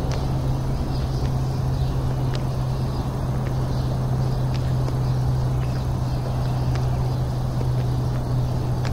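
Steady low mechanical hum over a rumbling noise, with a few faint light ticks.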